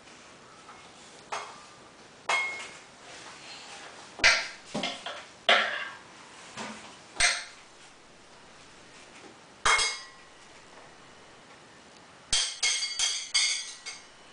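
A small metal toy pot and spoon clinking and knocking: scattered single clinks with a short metallic ring, then a quick run of about six clinks near the end as the spoon taps in the pot.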